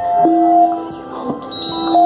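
Keyboard played solo without singing: sustained notes ringing and overlapping, with new notes struck about a quarter second in and again around the middle and near the end.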